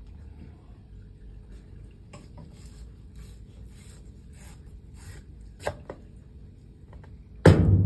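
Kitchen knife cutting and scraping along an eel on a wooden cutting board as it is filleted: a run of short, soft scraping strokes, with a couple of sharper knocks near the six-second mark. Near the end a sudden loud thump is followed by a steady low hum.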